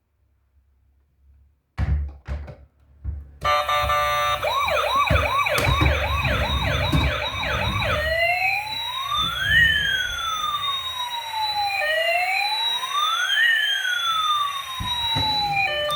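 Electronic siren from a toy emergency vehicle's sound chip, starting after a few handling knocks. It gives a fast warble of quick up-and-down sweeps, about two a second, then switches about eight seconds in to a slow wail of two tones gliding past each other.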